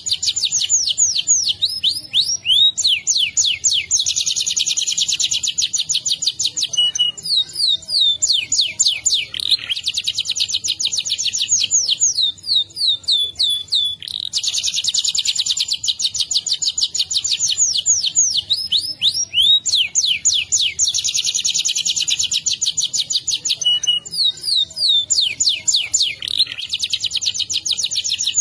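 Domestic canary singing a long, unbroken rolling song: long runs of very fast trills alternating with series of slower, sweeping notes.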